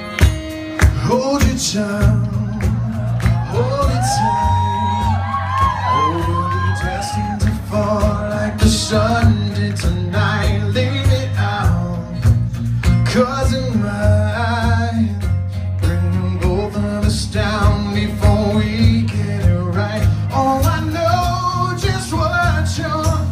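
Live acoustic band performance: a man singing lead over strummed acoustic guitars and a steady bass line, with the singing starting about a second in.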